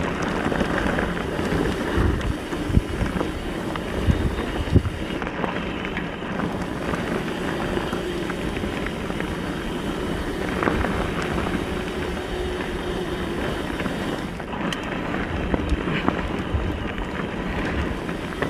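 Wind rushing over an action camera's microphone on a mountain bike descending a dirt trail, with steady tyre noise and scattered knocks and rattles from the bike over bumps.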